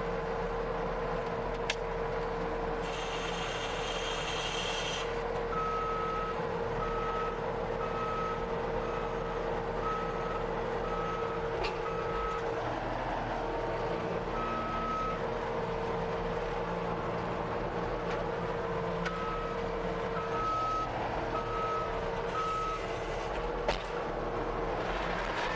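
Skid steer's engine running steadily, heard from inside the cab, with its reversing alarm beeping about once every 0.7 seconds in two spells while it backs up. Two short bursts of hiss, one early on and one near the end.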